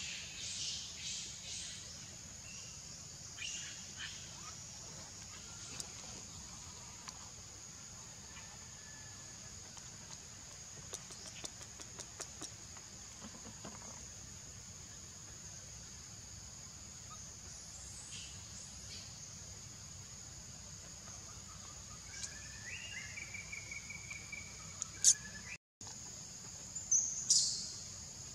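Forest ambience: a steady high-pitched insect drone with scattered short bird chirps, a brief warbling call, and two sharp clicks near the end.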